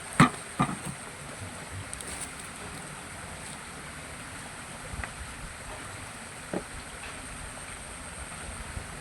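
Steady outdoor background hiss with a faint high tone, broken by two sharp knocks in the first second and a lighter tap later on.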